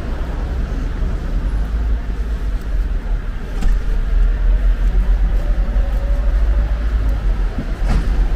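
Steady low rumble of city street traffic, with two short clicks, one about midway and one near the end.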